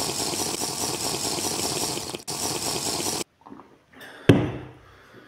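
Loud, continuous liquid rushing and gulping as a glass of orange juice is drunk down in one go. It cuts off abruptly at about three seconds. About a second later comes a single sharp knock as the glass is set down on the table.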